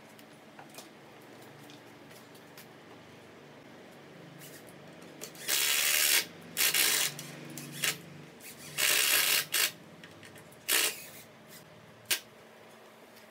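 Cordless drill driving screws into a pine frame in several short bursts, starting about five seconds in.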